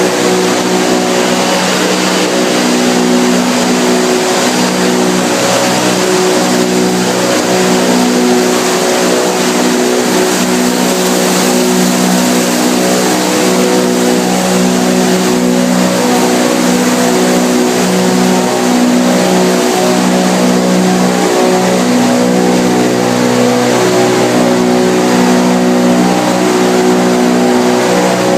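PET bottle washing line running: a loud, steady machine hum with a constant noisy rush over it.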